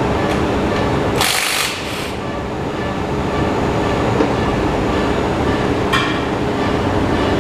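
2017 Kawasaki KLR650 rear rim spinning on a cone-mounted spin stand for a runout check, a steady mechanical rumble with a low hum. A brief rushing hiss comes about a second in, and a short click near the end.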